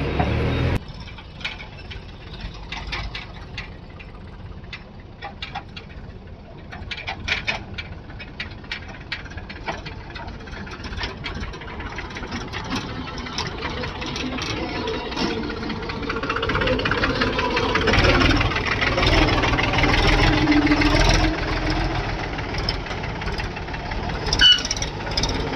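Diesel engine of a backhoe loader or tractor running. A run of short clicks and knocks comes over it in the first ten seconds, then the engine grows louder in the second half. There is one sharp knock near the end.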